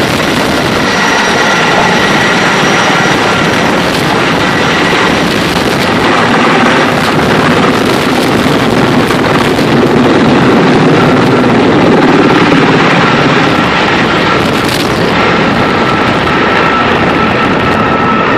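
Large firefighting helicopter running at close range: a loud, steady rotor and engine rush with a thin steady whine above it, swelling slightly about halfway through.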